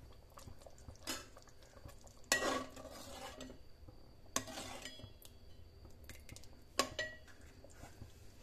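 A steel slotted spoon stirs thick gravy in an aluminium pot, clinking and scraping against the metal about four times. The loudest clink and scrape comes about two seconds in.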